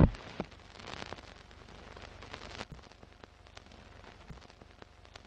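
Old-film crackle sound effect under a countdown leader: a faint steady hiss with scattered sharp clicks and pops, after a loud burst that dies away right at the start.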